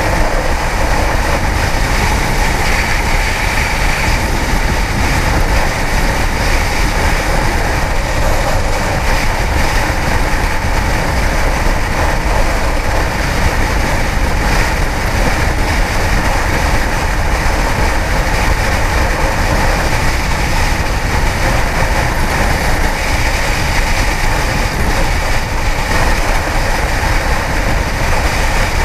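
Riding noise from a Kawasaki ZX-10R's inline-four at steady speed: wind rushing over the helmet microphone on top of the engine, even and without revving.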